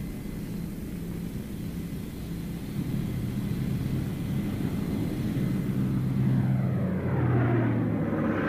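Airplane engines droning steadily, growing louder from a few seconds in, with a sweeping rising rush near the end as the aircraft comes close.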